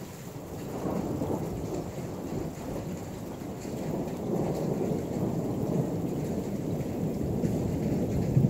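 Rolling thunder rumbling, building about a second in and swelling again near the end.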